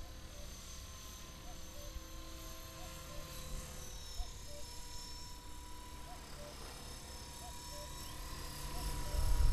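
Electric 450-size RC helicopter flying at a distance: a faint, steady whine from its motor and rotor. A short faint chirp repeats about once a second.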